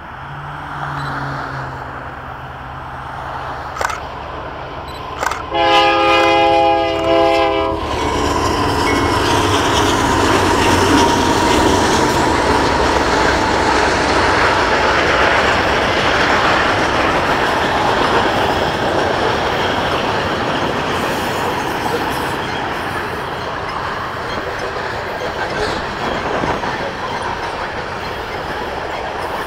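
A freight locomotive's horn sounds one blast of about two seconds, a little over five seconds in. From about eight seconds a long train of tank cars passes close by, with a steady loud rumble and the clatter of wheels on the rails.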